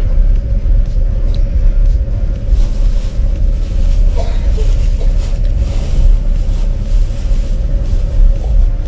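Steady low rumble of a moving vehicle, with a constant mid-pitched hum over it.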